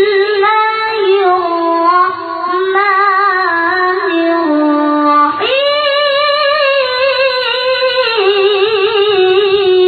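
A child qari reciting the Quran in the melodic tilawah style, one voice holding long notes with wavering ornaments. About five seconds in it breaks off briefly and starts a new, higher phrase.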